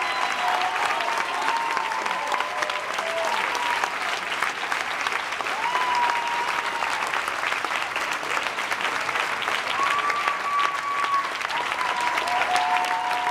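Audience applauding, a dense steady clapping, with drawn-out cheering calls from the crowd rising above it now and then.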